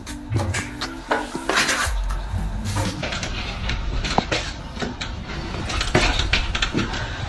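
Irregular scraping and clicking of hard tools, metal-like, a run of short strokes. Background music plays for about the first two seconds.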